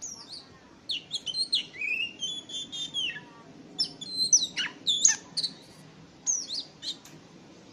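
Oriental magpie-robin (Sumatran kacer) singing: quick, varied whistled phrases of rising and falling slurs and short sharp notes, in several bursts broken by brief pauses.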